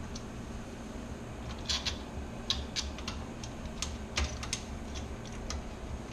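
Irregular light clicks and taps of PC parts being handled and fitted, such as fans, screws and cables going into a computer case. There are about a dozen clicks, mostly between one and a half and five seconds in, over a low steady hum.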